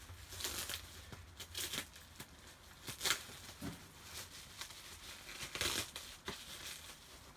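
Packaging being torn and crinkled by hand to unwrap a parcel, in a series of short irregular rustles and rips.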